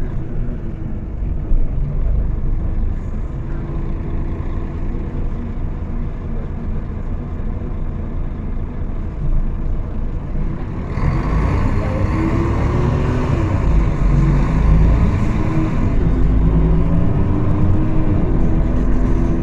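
Mercedes-Benz O500-UA articulated bus's diesel engine running, getting louder about eleven seconds in as it revs up with rising pitch. The bus had an unusual sound its recorder found strange.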